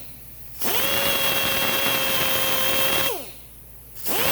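Electric drill spinning abrasive paper inside a brake wheel cylinder bore to take off excess JB Weld, run in short bursts. It spins up about half a second in, runs at a steady speed, winds down near three seconds, and starts again near the end. The paper is dull and cuts poorly.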